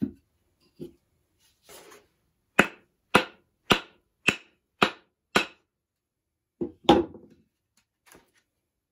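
Sharp wooden knocks as a carved banjo neck is handled: a few light knocks, then an even run of six about half a second apart, then a double knock a little later.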